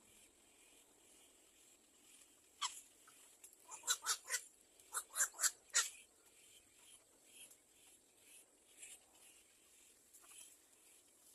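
Bird calls: one sharp call, then two quick runs of four or five short, sharp calls in the middle, over a faint background.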